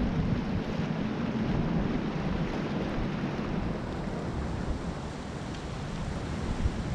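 Wind noise on the microphone over waves washing against a rocky shore, with a faint low hum that fades out about two seconds in.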